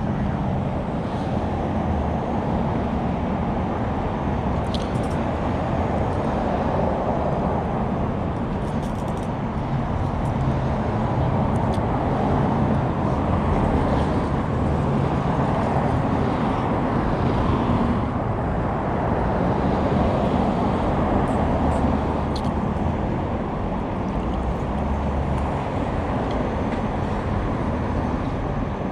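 Steady car engine and road noise, a continuous low hum with a few faint clicks.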